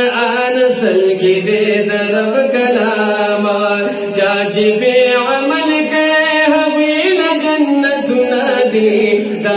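Two men singing a Pashto naat, a devotional poem, together unaccompanied in a slow chanting melody with long held notes, through a handheld microphone.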